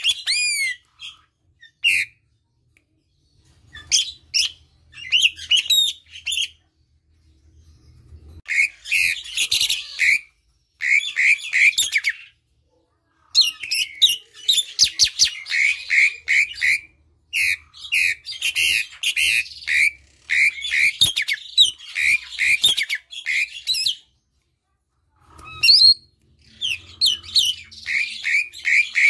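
Asian pied starling (jalak suren) singing loudly in bouts of chattering, squawky whistled notes, with runs of quick repeated notes, broken by several short pauses.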